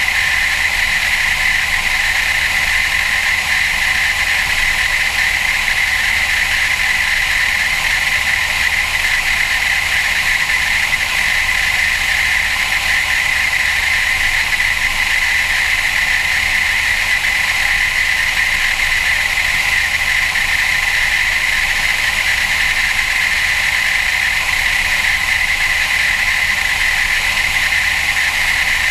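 Cessna Cardinal's four-cylinder piston engine and propeller droning steadily in cruise flight, mixed with rushing airflow noise, with a strong, even high-pitched hum that never changes.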